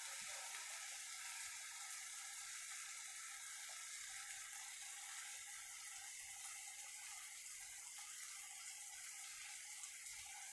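Onion-tomato masala with spices sizzling gently in oil in a non-stick kadai, frying (bhuna) for a minute: a faint, steady hiss.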